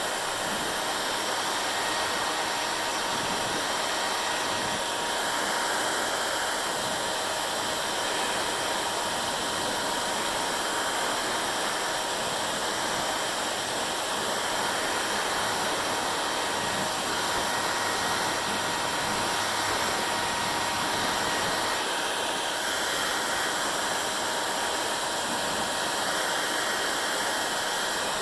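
Hair dryer running steadily: an even whooshing rush of blown air under a faint steady motor whine.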